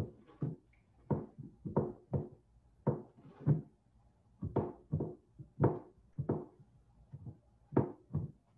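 Soft, irregular thumps and knocks, roughly two or three a second, as hands fold and press pie dough under along the rim of a glass pie plate on the countertop.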